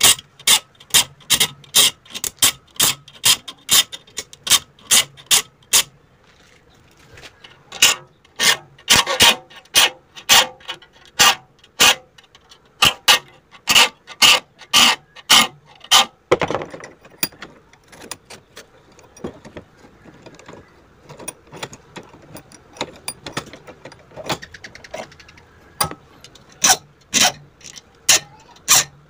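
Sharp clicks repeating about two a second. They pause briefly about six seconds in, grow fainter and sparser in the middle, and come back strongly near the end.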